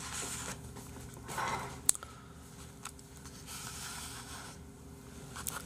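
Faint rustling and knocking of plastic takeout food containers being handled, with one sharp click about two seconds in, over a faint steady hum.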